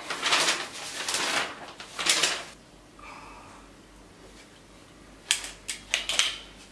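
Sheet of paper rustling as it is handled, in a few short bursts with a quiet stretch between.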